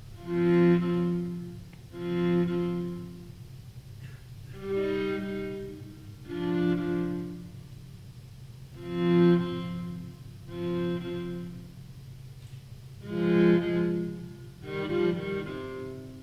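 Bowed string instruments play eight short sustained chords, loosely in pairs, each about a second long with pauses between, over a steady low hum.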